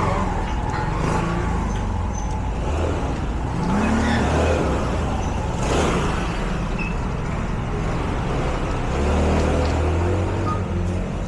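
Street traffic heard from a moving bicycle: a steady low rumble of traffic and wind on the microphone, with vehicles passing about four and six seconds in.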